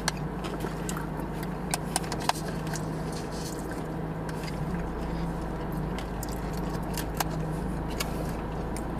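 Steady low hum inside a parked car's cabin, with scattered short clicks and rustles from two people eating takeout food and one drinking from a paper soda cup.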